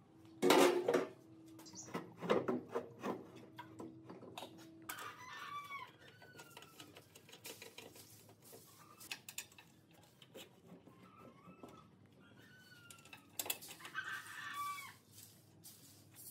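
Chickens clucking, repeated short calls through most of the stretch. A few sharp knocks sound in the first few seconds, the loudest about half a second in.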